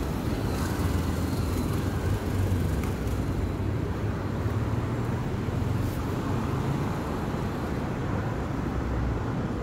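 Steady low rumble of road traffic, with no separate events standing out.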